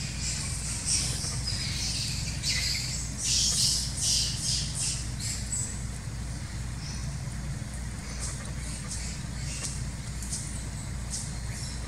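Quick high-pitched chirps and squeaks, packed close together for the first six seconds and scattered after, over the steady low hum of an idling vehicle engine.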